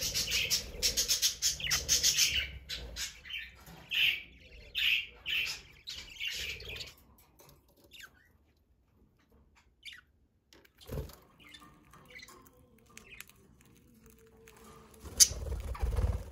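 Budgerigars chirping in quick chattering runs for the first several seconds, then only scattered chirps. A dull thump comes about eleven seconds in, and a sharp click with a low rumble near the end.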